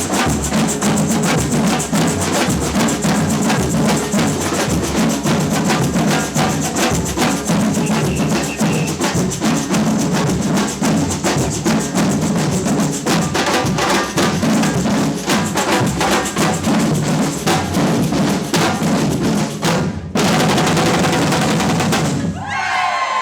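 Samba percussion band (batucada) playing a fast, dense drum groove with sharp wood-block-like strikes. Near the end it swells into a loud sustained roll and then stops abruptly, and the crowd starts cheering.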